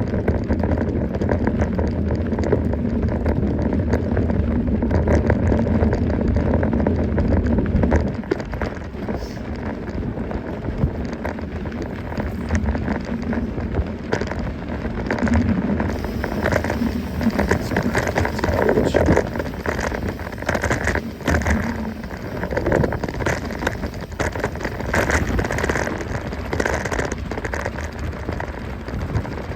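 Mountain bike rolling along a trail, tyres crunching and clattering over the ground in a dense, crackly rattle. A steady low hum sits under it for the first eight seconds or so, then drops away.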